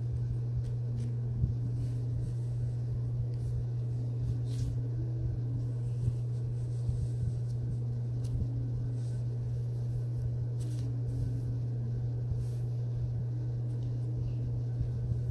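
A steady low hum, with a few faint clicks and taps over it.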